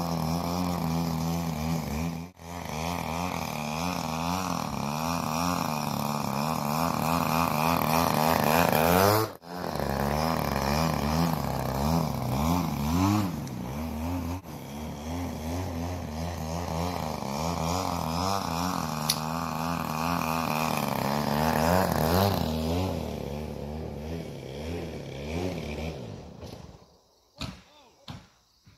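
Small piston engine of an Extra RC model aerobatic plane running at low, uneven revs. It briefly rises in pitch about nine seconds in, then fades and stops near the end.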